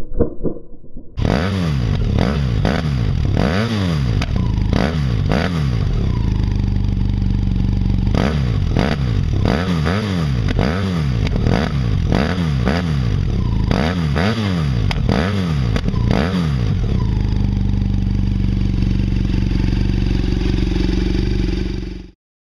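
BMW F800GS parallel-twin engine breathing through de-catted headers and a Beowulf end-can, running loud and revved over and over in quick throttle blips. Near the end it settles to a steady run, then the sound cuts off abruptly.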